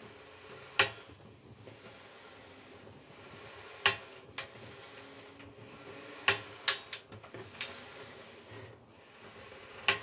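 About eight sharp knocks and clicks from hands working inside the perforated metal drum of a Simpson clothes dryer, three of them close together a little past the middle, while the cause of an unexplained noise is being hunted down.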